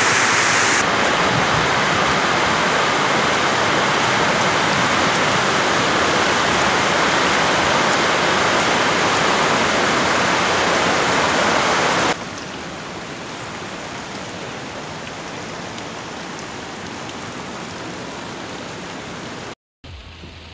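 Muddy floodwater rushing and heavy rain falling, a dense steady rush of water noise. It is loud for the first dozen seconds, then drops suddenly to a quieter steady rush. It cuts out briefly near the end.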